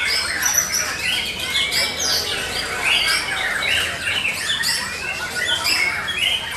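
Several caged white-rumped shamas (murai batu) singing at once in competition: many varied whistled phrases rising and falling, overlapping without a break.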